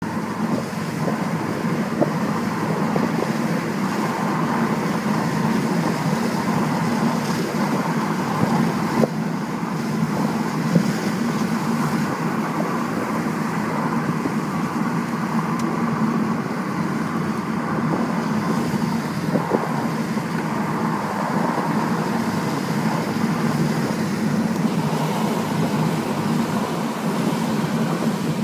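Car cabin noise while driving on a wet road: a steady mix of engine and tyre noise with a low hum, broken by a few light knocks.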